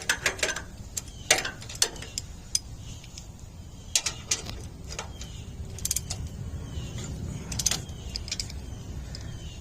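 Half-inch drive socket ratchet clicking in short, irregular runs as brake caliper bolts are run down tight by hand, over a low steady hum.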